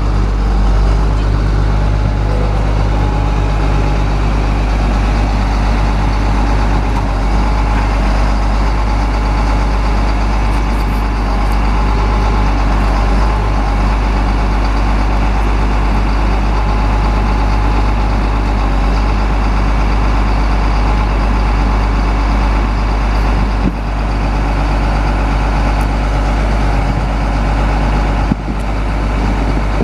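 Caterpillar 3126 inline-six turbo diesel engine of a Chevrolet C7500 truck running at a steady speed.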